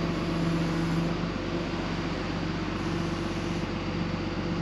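A tow truck's engine idling steadily, a low even hum.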